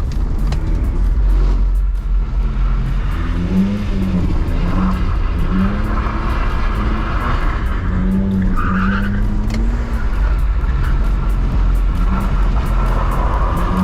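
A BMW E46 320i's M54B22 2.2-litre inline-six revs up and down again and again while the car slides on a wet surface, with tyre skid noise over a heavy low rumble.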